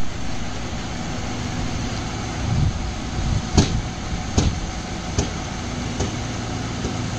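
Truck-mounted borewell drilling rig running steadily with a low hum, and four sharp knocks, evenly spaced under a second apart, in the middle.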